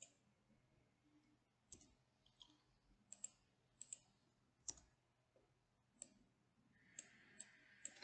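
Faint computer mouse clicks, about a dozen scattered through the stretch, some in quick pairs, over near silence.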